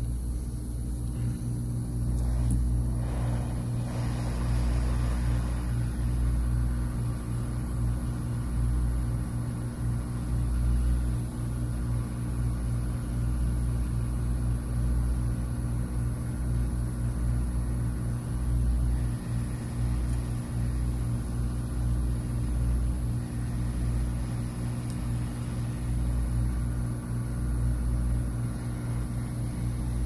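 Hot air rework station blowing, a steady low hum with light air noise, as it heats a tiny component loose from a phone logic board.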